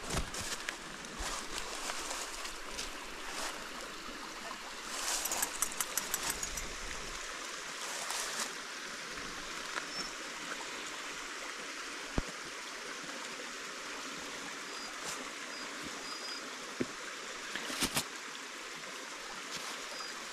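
A low-flowing stream running steadily, with a few scattered clicks and knocks and a quick run of taps about five to seven seconds in.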